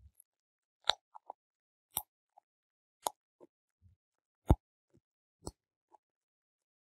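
Bubble wrap bubbles popped one at a time between fingers: a sharp pop about once a second, the loudest a little after the middle, with faint crinkling ticks of the plastic in between.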